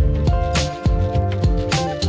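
Background music with sustained notes and a steady beat.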